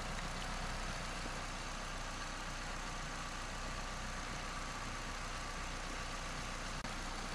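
2010 Hyundai Accent's four-cylinder engine idling steadily.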